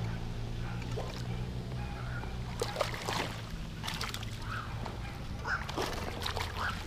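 A hooked largemouth bass splashing and sloshing at the water's surface as it is reeled in and landed, in a few short bursts around the middle and near the end, over a steady low hum.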